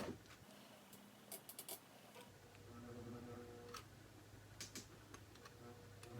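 Morse TZ5 sewing machine eased almost to a stop on its foot pedal: its motor hums faintly at low speed in spells, with a few light clicks.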